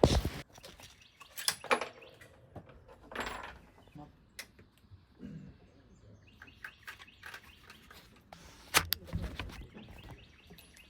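Outdoor birdsong, short chirps repeated in a run through the second half, broken by several sharp cracks or knocks; the loudest comes near the end.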